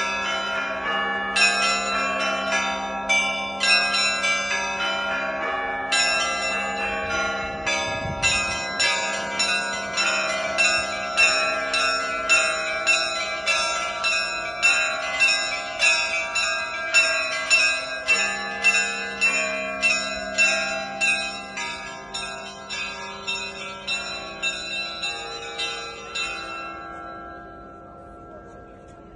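Russian Orthodox church bells rung in a zvon: small bells struck in a quick, steady rhythm over the sustained hum of a larger bell. Near the end the ringing fades and stops, leaving the bells to die away.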